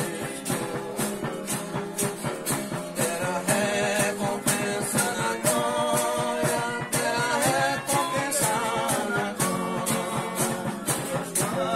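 A folia group's devotional song: voices singing a wavering, held-note melody over string accompaniment, with rattling percussion keeping a steady beat.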